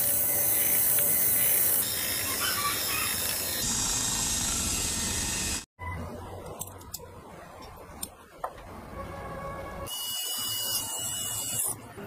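Small machined metal parts of a miniature four-cylinder model engine being handled and fitted, heard as sharp clicks and taps. Before this there are several seconds of loud, steady mechanical noise, and near the end a steady hiss.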